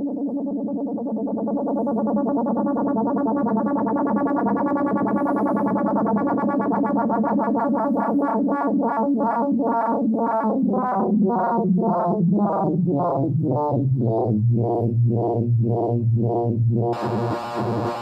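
DIY Arduino Nano drone synthesizer holding a buzzy electronic drone. About halfway through it starts pulsing at about two beats a second and its low note drops lower. Near the end a bright noise hiss switches on over it.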